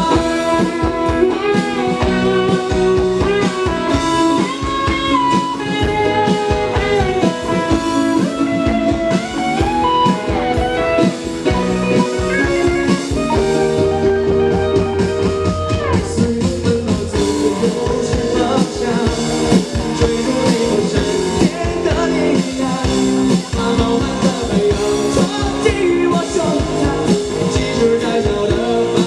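Live rock band playing an instrumental break with no vocals: an electric lead guitar carries a bending melodic line over drum kit and bass.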